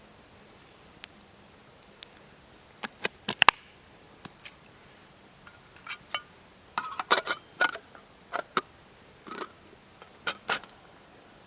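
Irregular light clinks and knocks of small hard objects being handled, some with a short metallic ring, bunched most densely a little past the middle.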